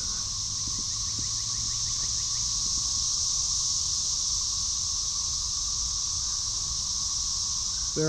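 Massed chorus of Brood XIX 13-year periodic cicadas: a loud, steady, unbroken high-pitched drone from the males in the surrounding trees.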